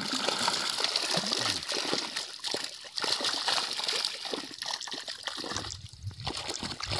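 Small fish thrashing in a fishing net in shallow water, with many quick, irregular splashes and sloshing as hands work the net, and a brief lull near the end.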